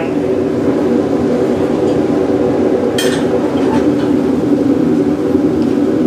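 Steady drone of a forced-air propane furnace burner, its blower salvaged from a microwave oven, with a single sharp metallic clink about three seconds in.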